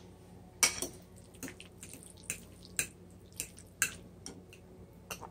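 A fork stirring and mashing drained diced tomatoes into mashed avocado in a bowl: soft wet squishes and light clicks of the fork against the bowl, about a dozen at irregular intervals.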